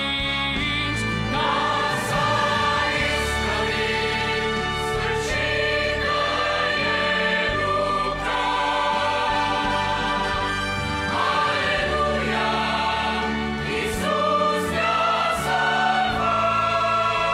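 Mixed choir singing a Romanian hymn in harmony.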